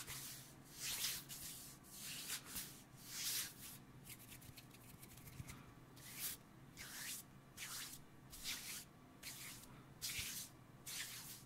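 Hands rubbing palms together close to a sensitive microphone: a series of short, hissy swishes, irregularly spaced, roughly one a second.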